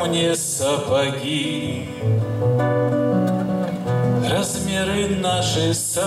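A man singing a Russian bard song, accompanying himself on acoustic guitar.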